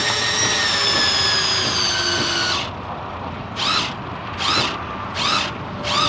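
Drill in low gear turning a truck's factory screw jack to lift the frame: the motor runs steadily with its pitch drifting slightly down, stops about two and a half seconds in, then is pulsed in short bursts about every three quarters of a second.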